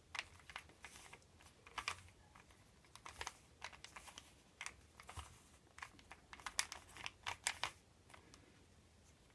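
Rubik's Cube being twisted by hand: irregular plastic clicks of the layers turning, with a quick run of louder turns about two-thirds of the way through.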